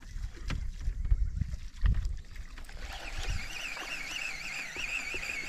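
Low rumble and a few knocks of handling on a small fishing boat, with water sounds. From about halfway in, a high, wavering whistle-like tone starts and keeps going.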